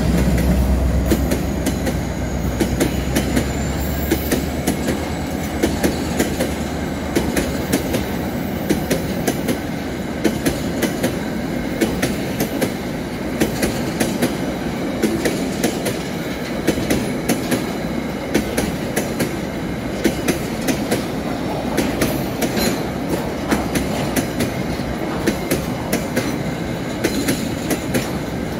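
Freight train passing close by. A diesel locomotive's engine rumble is strong for the first several seconds and then fades. After it, a long line of loaded tank cars rolls past with a steady rumble and a regular clickety-clack of wheels over the rail joints.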